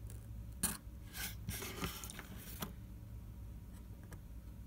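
A sharp click, then about two seconds of scraping and tapping as small repair tools work against the opened iPhone 6s's internals and the desk, over a low steady hum.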